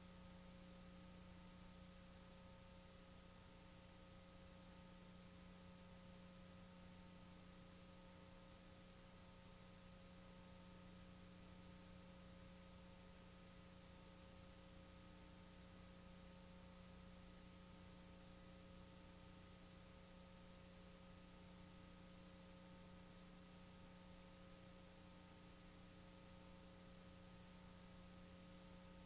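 Near silence: a faint, steady electrical hum with a few constant tones under a light hiss.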